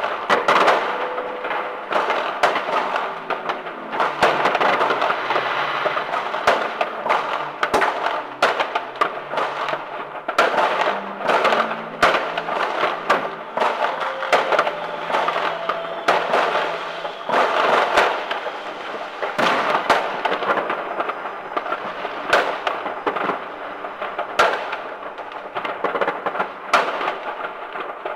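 New Year's Eve fireworks and firecrackers going off all around: a dense, unbroken crackle with many sharp bangs of varying loudness, one after another.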